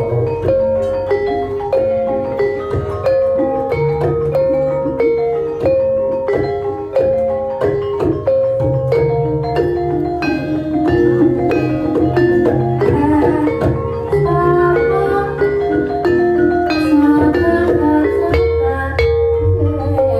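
Javanese gamelan playing a Banyumasan gending: rows of saron metallophones struck with mallets in a quick running melody of clear ringing notes, over low drum and gong strokes.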